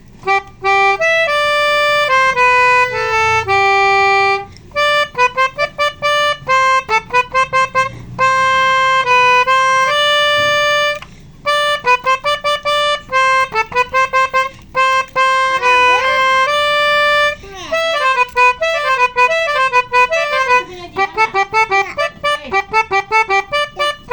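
Basuri telolet horn, a multi-tone bus air horn, playing a melody: long held notes at first, then quick staccato notes from about three quarters of the way through.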